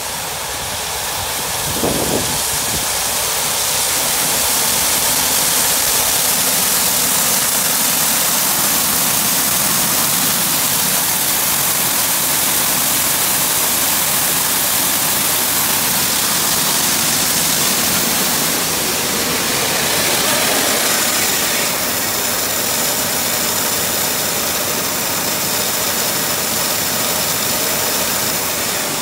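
Grain augers moving soybeans: a steady rushing rattle of beans pouring through the small augers into the 8-inch auger's hopper. The electric auger motor and the Minneapolis-Moline M602 tractor driving the 8-inch auger run underneath. There is a short knock about two seconds in.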